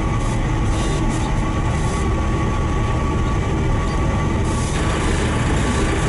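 Cab noise of a JCB 3CX Sitemaster backhoe loader on the move: its diesel engine and drivetrain running steadily, with a heavy low drumming resonance through the cab and a faint steady whine.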